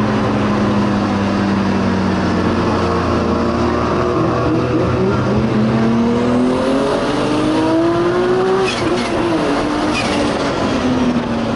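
Turbocharged 3.2-litre RB straight-six of a 1000 hp Nissan Skyline R34 GT-R, heard from inside the car. It holds a steady pitch, rises as it accelerates, then drops away off the throttle. A few sharp pops come near the top of the pull.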